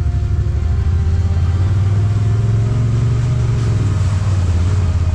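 Side-by-side UTV engine running steadily under throttle, the revs lifting a little about a second and a half in.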